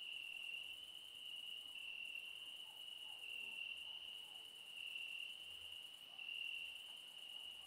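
Crickets trilling: one continuous high-pitched trill that gently swells and eases in loudness, with no breaks.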